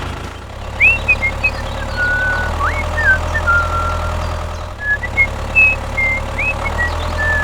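A tractor engine running steadily, a low hum, with a string of short high chirping tones, some sliding in pitch, scattered over it.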